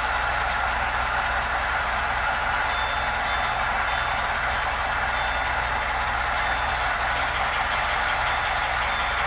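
Model freight train rolling past on the track, a steady whir and rumble of its wheels on the rails over a low hum.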